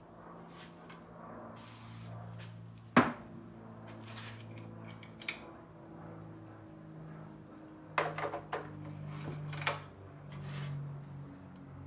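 Small hard clicks and knocks of hands working on a leaf blower's recoil starter parts: one sharp click about three seconds in, a quick cluster of clicks near eight seconds and another shortly after, over a faint steady low hum.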